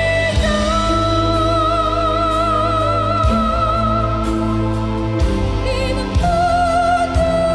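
Background music: a slow melody of long held, wavering notes over deep sustained chords that change every two or three seconds.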